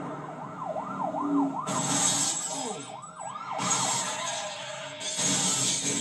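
Police car siren blaring in rapid rising-and-falling sweeps, broken by three loud bursts of rushing noise, heard as film sound through a TV speaker.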